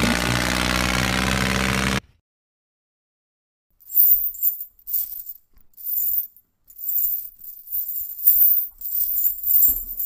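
An engine runs steadily for the first two seconds and cuts off suddenly. After a short silence, a metal chain clinks and jingles in repeated short bursts as it is handled.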